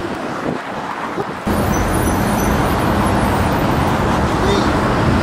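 Road traffic from cars and buses passing on a city street, a steady rumble that jumps suddenly louder and heavier about a second and a half in.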